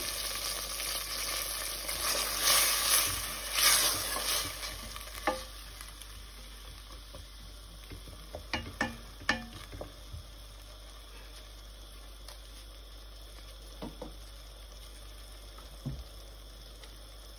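Sliced onions sizzling in oil and a little water in a stainless steel pot, louder for the first few seconds and then settling to a faint hiss. A wooden spatula stirring the onions knocks lightly against the pot a few times.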